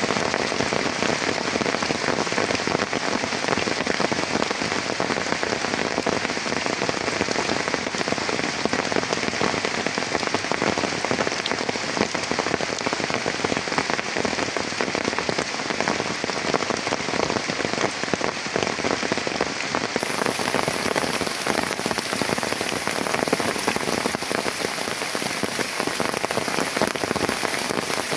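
Heavy rain falling steadily, a dense, unbroken patter of drops.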